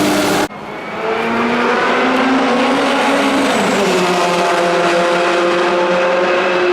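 Nissan R91CP race car's twin-turbo V8 running at speed. A louder, closer engine sound cuts off abruptly about half a second in, then the engine note climbs steadily, drops in pitch once about three and a half seconds in, and climbs again.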